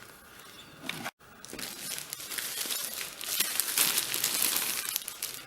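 Plastic packaging crinkling and rustling as it is handled and pulled open. It is faint for the first second, breaks off briefly, then crinkles on continuously.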